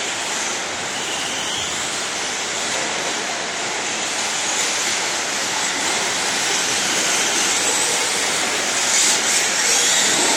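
Radio-controlled short-course 4x4 trucks racing on an indoor dirt track: a steady rushing noise of motors and tyres on dirt, growing a little louder near the end.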